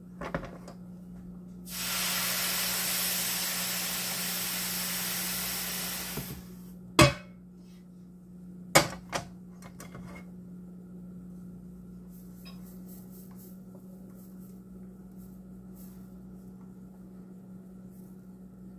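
Hot nonstick griddle pan hissing loudly with steam for about four seconds as it sits on a wet towel, cooling it down before the batter goes in. Two sharp knocks follow, a couple of seconds apart, over a steady low hum.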